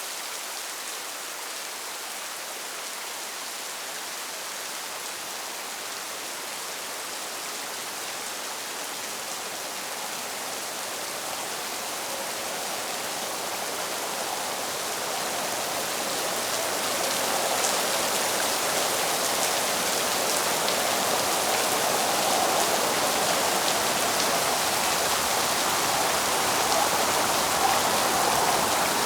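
Steady rainfall hiss that swells gradually louder over the first half and then holds steady.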